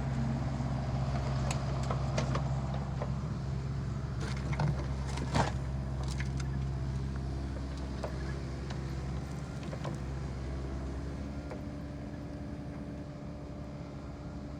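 Excavator's diesel engine running steadily, with scattered sharp knocks and clanks, the loudest about five seconds in. The engine note drops back a little in the second half.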